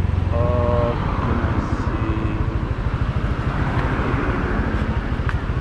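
Motor scooter engine easing off as the scooter slows and pulls in, then idling with a rapid, even low beat.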